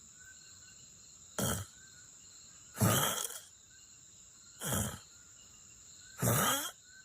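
A person snoring: four rasping breath sounds about a second and a half apart, the loudest about three seconds in, over a faint steady high-pitched whine.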